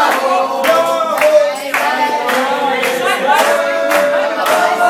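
Singing with steady rhythmic hand-clapping in time, roughly two claps a second.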